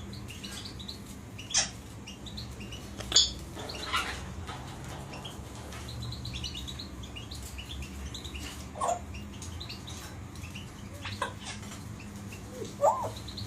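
Pet parrots chirping softly, with about six short, sharp calls scattered through.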